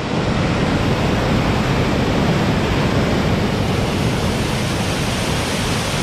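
Small waterfall cascading through a rocky channel between boulders: a steady, even rush of falling white water, heard close.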